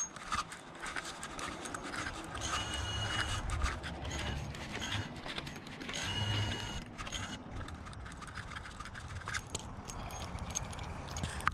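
Handling noise from an action camera on an FPV racing quad being carried by hand: scattered clicks, knocks and rubbing over a low rumble, with two brief high tones about a third and half of the way in.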